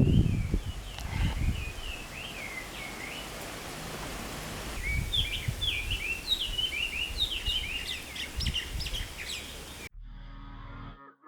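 Birds singing in quick short chirping phrases, more densely in the second half, over a low rumble that is loudest at the start. Background music cuts in near the end.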